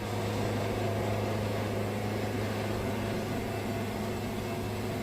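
Wood-Mizer band sawmill running steadily with its blade cutting through a yellow pine log: a constant hum with a hiss over it.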